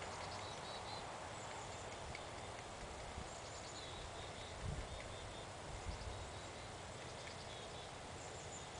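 Outdoor ambience: a steady rushing background with small birds chirping faintly and repeatedly. Two short low thumps come about halfway through.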